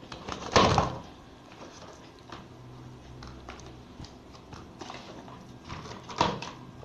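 Handling noise: a tablet and its loose parts knocked and clattered on a hard surface, with one loud clatter about half a second in, a few light taps, and another knock near the end.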